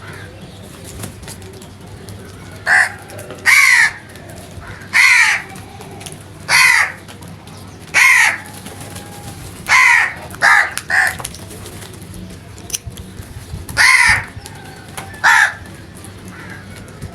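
Crows cawing: about ten separate harsh caws, a few seconds apart, with a quick run of three near the middle. A steady low hum sits underneath.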